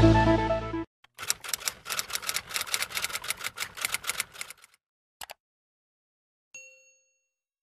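Electronic intro music cuts off about a second in, followed by a subscribe-button sound effect: a fast run of typing clicks lasting about three seconds, a single mouse click, then a short bell ding.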